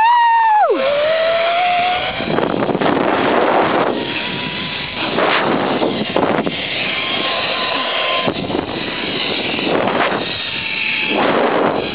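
Riding a zip line: wind rushes over the microphone in repeated surges while the trolley runs along the cable with a faint high whine. A high tone falls sharply right at the start.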